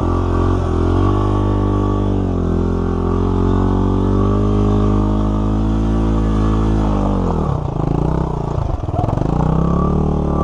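Dirt bike engines running at low revs on a slow, steep climb: the two-stroke 2001 Suzuki RM250 carrying the camera, with a Honda XR100 just ahead. The engine note holds steady, then dips and wavers about eight seconds in before picking back up.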